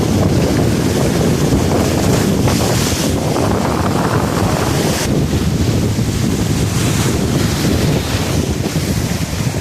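Strong wind buffeting the microphone over the steady wash of the sea.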